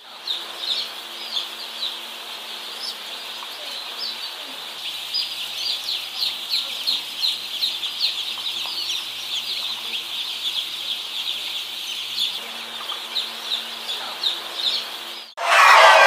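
A crowd of young chicks peeping continuously: many short, high, falling peeps overlapping, over a faint steady low hum. About a second before the end the peeping cuts off suddenly and a much louder, noisy sound takes over.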